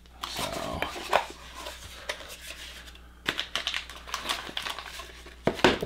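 Handling noise as a small cardboard knife box is opened: scattered light clicks and scrapes of cardboard, then plastic wrapping rustling and crinkling from about halfway through, with a louder knock near the end.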